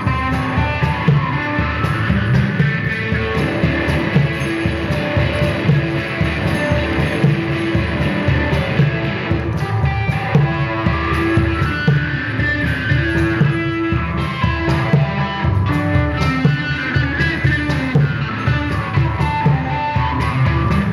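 Electric guitar playing repeating, droning melodic lines over a steady, driving percussion pulse, performed live as an instrumental duo.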